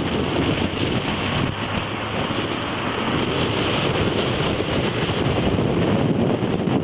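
Steady wind rushing over the camera microphone from a moving vehicle, with road and engine noise underneath.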